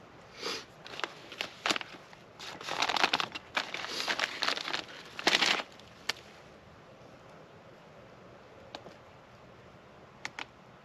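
Knife blade scraping shavings off a stick of fatwood, an uneven run of rough scraping strokes over the first six seconds, loudest about three and five seconds in. After that come only a few faint clicks as tinder is handled.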